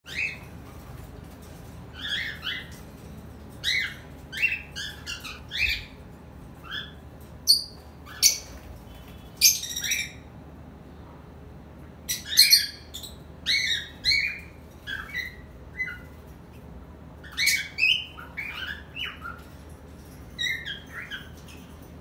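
A flock of cockatiels giving short chirping whistles and squawks in quick clusters, with a lull about halfway through. These are the calls that accompany the start of the breeding season, presented as the cockatiel mating call.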